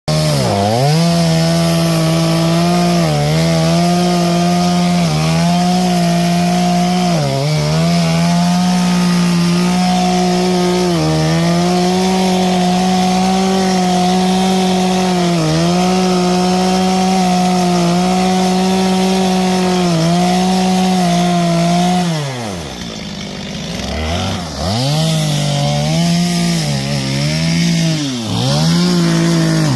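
Chainsaw engine running at high revs, cutting through a dead palm trunk, its pitch dipping briefly every couple of seconds. About 22 seconds in it drops to idle for a couple of seconds, then revs back up into the cut.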